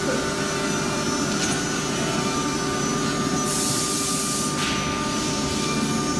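Woodworking panel machinery running steadily with a constant hum, and a burst of compressed-air hiss about three and a half seconds in that lasts about a second.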